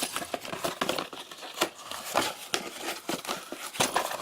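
Packaging crinkling as it is handled and pulled open by hand: an irregular run of crackles and small clicks.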